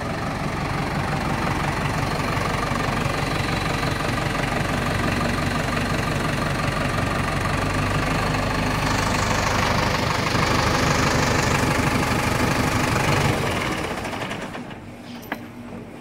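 Diesel engine of a Landini Globalfarm 100 tractor running steadily at idle, a little louder for a few seconds past the middle, then dying away near the end, with a single click just after.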